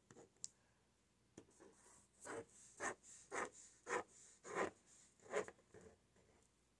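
Pen writing on paper: a faint run of short scratching strokes, nearly two a second, starting about two seconds in.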